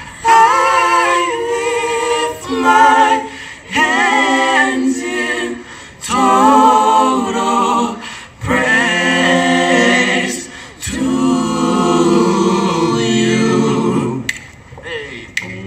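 A cappella vocal group of five young men and women singing in harmony into handheld microphones, with no instruments. The singing comes in phrases broken by short pauses.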